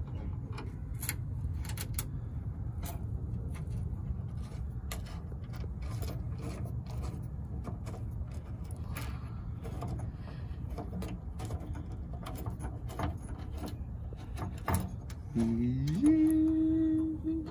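Light metal clicks and taps of nuts and washers being hand-threaded onto trunk-lid hinge bolts, over a steady low rumble. Near the end a tone glides up in pitch and then holds for about two seconds, louder than the rest.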